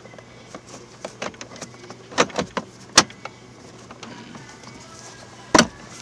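Plastic shifter trim cover being handled and pressed into place in a car's center console: scattered sharp clicks and knocks, the loudest about three seconds in and two more near the end as it snaps in.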